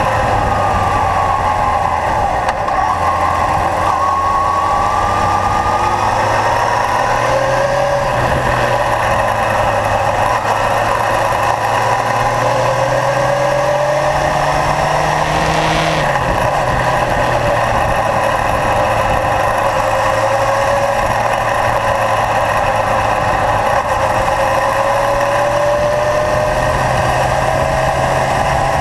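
Kawasaki Zephyr air-cooled inline-four motorcycle engine running on the road, its pitch climbing slowly as it pulls. About sixteen seconds in the pitch drops suddenly, then it runs steady again. A steady rush of wind and road noise runs under it.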